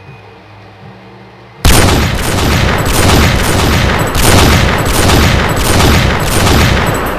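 A rapid string of pistol shots, about two a second, beginning suddenly about a second and a half in, each shot running into the echo of the last so that they merge into a continuous loud wash. These are gunshot sound effects laid over the muzzle-flash footage.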